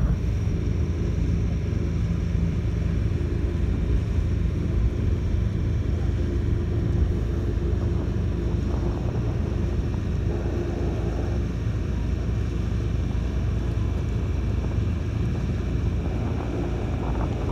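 Steady low rumble of a boat under way, with a faint steady hum that fades out about eleven seconds in.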